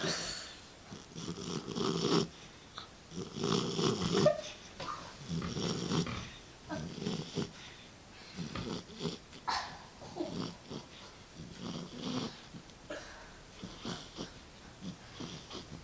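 Beagle puppy snoring in deep sleep: long snoring breaths about every one and a half to two seconds, turning into shorter, more uneven breaths from about halfway through.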